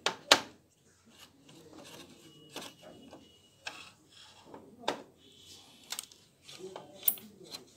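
Screwdriver working a screw loose inside a Kyocera TASKalfa copier, with scattered sharp clicks and scrapes of metal on plastic.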